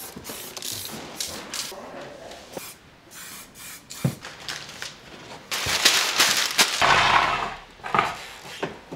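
Aerosol spray-paint can hissing in a series of short bursts, with a longer, louder spray about two-thirds of the way through, amid knocks from handling.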